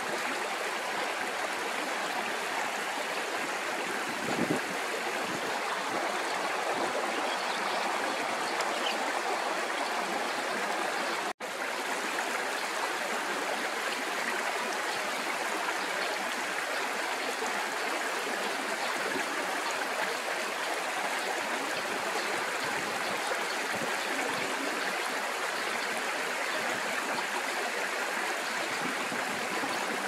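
Steady rush of running water, as from a stream or a weir feeding the pond, broken by a brief cut about eleven seconds in.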